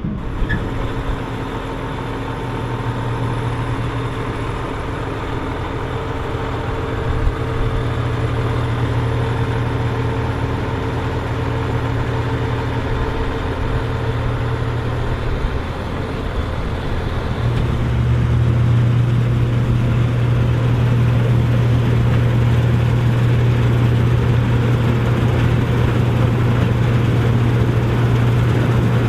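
Case IH 1455 XL tractor's six-cylinder diesel engine running steadily, growing louder about two-thirds of the way in.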